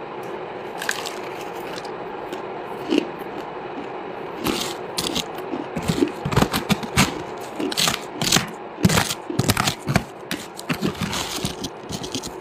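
Hard buckwheat chunks being chewed: a few sharp crunches at first, then from about four and a half seconds in a rapid run of loud crunches and cracks.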